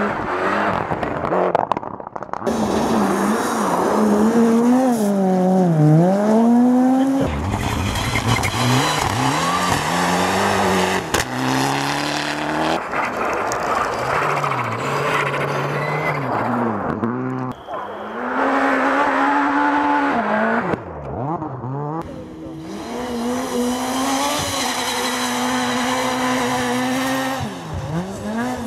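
Rally cars passing at speed on a snowy gravel stage, one after another, their engines revving hard and dropping between gear changes. Several times the sound breaks off abruptly and the next car's engine begins.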